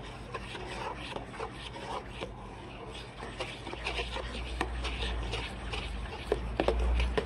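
A spoon stirring and scraping through custard mixture of egg yolks, sugar and hot cream in a bowl, in repeated short strokes, blending in the cream until the sugar dissolves. A low rumble comes in during the second half.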